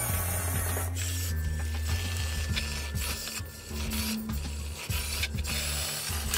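Small gear motors of a LittleBits Droid Inventor R2 unit whirring as it drives over the table, with background music carrying a low bass line that steps between notes.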